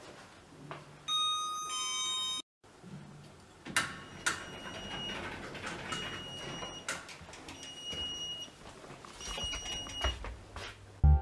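Two-note electronic ding-dong chime, high note then lower, about a second in. After a break come light clicks and clatter with four short, high beeps spaced about a second and a half apart.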